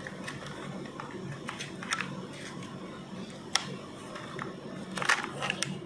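Small clicks and handling sounds as a DDR3 SO-DIMM RAM module is pressed and worked into a laptop's memory slot. One sharp click about three and a half seconds in, and a cluster of clicks about five seconds in.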